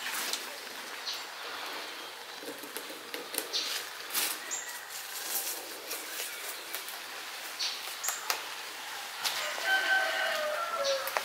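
Rabbit biting and chewing cannabis stems and leaves, with irregular short crunches, clicks and leaf rustles. Near the end a bird calls.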